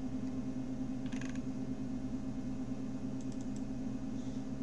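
Steady low electrical hum, with a short quick run of computer clicks about a second in and a few fainter clicks a little after three seconds, from mouse and keyboard use while navigating a file manager.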